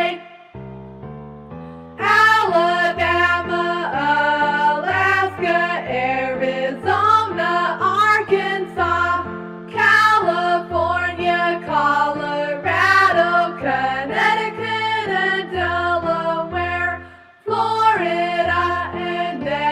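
Children's song with singing over a synthesized backing and a regular, stepping bass line: a song about the fifty US states. About a second in there is a short quieter stretch of instrumental notes only, and near the end the music drops out briefly before the singing comes back.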